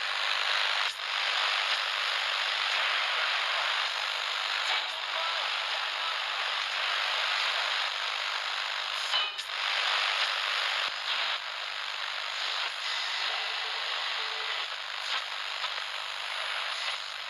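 Steady static hiss with no bass, with scattered crackles and clicks, as a noise passage in the recording rather than music.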